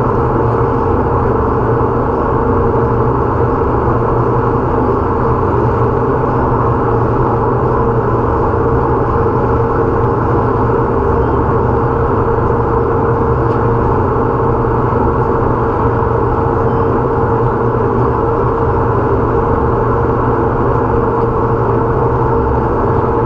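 Wake boat under way: its inboard engine drones steadily while water rushes along the hull and the wake churns. The sound is muffled and unchanging.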